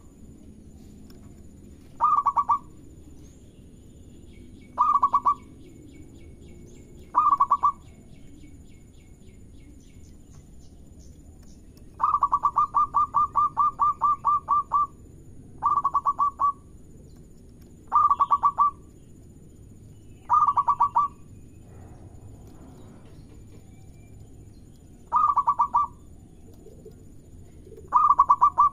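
Zebra dove (perkutut) cooing: short phrases of rapid, rolling coo notes repeated every two to three seconds, with one longer run of quick notes about halfway through. Faint high chirps sound in the background between calls.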